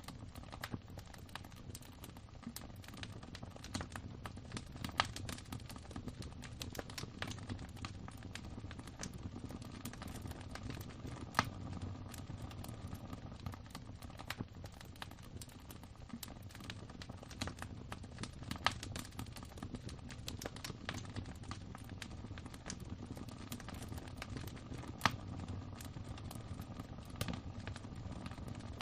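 Wood fire burning in a fireplace, crackling with irregular sharp pops over a low steady rumble; a few pops stand out louder than the rest.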